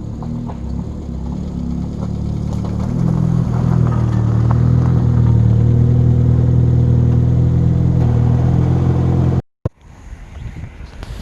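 Car engine running with a steady low note that grows louder from about three seconds in, then cuts off abruptly near the end.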